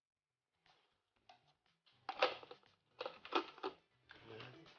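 Red plastic feeding base of a hummingbird feeder being fitted onto its glass nectar jar: a few short clicks and scrapes of plastic on glass, loudest about two and three seconds in.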